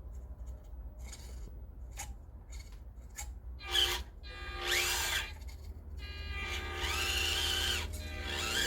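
Small electric motor and drivetrain of an FMS 1:18 Atlas 6x6 RC crawler whining in two short throttle runs, its pitch rising and falling, about four seconds in and again near the end. It makes a little bit of a weird noise when it goes.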